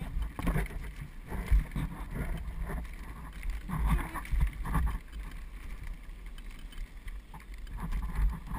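Wind buffeting the microphone over the rumble of a bicycle trailer's wheels rolling on asphalt, uneven and gusty, with several louder surges.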